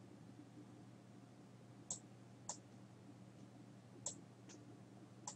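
Computer mouse buttons clicking five times, sharp and short, in two close pairs and then a single click near the end, over a faint low hum.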